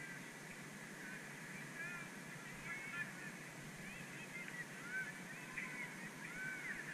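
A flock of birds calling: many short, overlapping calls that start about two seconds in and grow busier toward the end, over a steady low background rumble.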